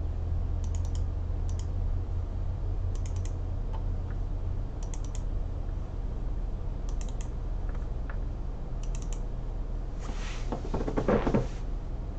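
Short clusters of sharp clicks about every two seconds from a computer keyboard and mouse being worked at a desk, over a steady low electrical hum. Near the end a louder burst of rustling noise lasts about a second and a half.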